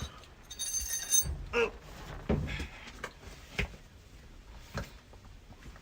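Hand tools clinking and knocking against metal parts during a transmission removal: a ringing metallic clink near the start, then a few scattered knocks and scrapes.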